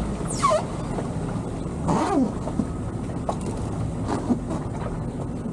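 Towboat's outboard engine running under way, with water rushing along the hulls of the two lashed-together boats. A couple of brief squeaks fall in pitch, the loudest near the start.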